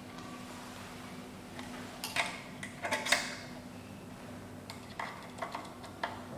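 Small metal parts clinking and tapping against a key cutting machine as a decoder and cutter are handled, in two short clusters, over a low steady hum.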